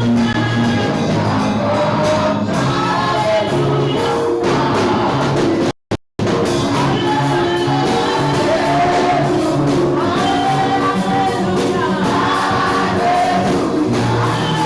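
Church congregation singing a gospel anthem to instrumental accompaniment; the sound cuts out for a moment about six seconds in.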